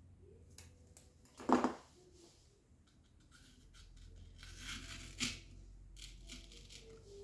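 Small handling noises of hands working with craft materials: scattered clicks, a louder single knock about one and a half seconds in, and a short rustle around five seconds in.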